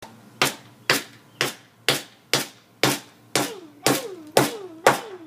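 Hammer driving a nail into a wooden birdhouse: ten sharp, even strikes about two a second. The later strikes leave a short ring that falls in pitch.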